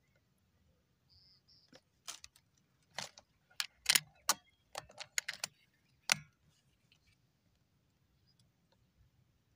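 About ten irregular sharp clicks and light metallic rattles over four seconds, loudest in the middle: handling noise from the air rifle and its scope as the shooter settles the aim. A couple of faint high chirps come just before the clicks start.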